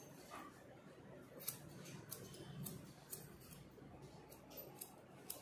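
Hair-cutting scissors snipping through long hair: a run of about ten faint, quick snips at an uneven pace, starting about a second and a half in.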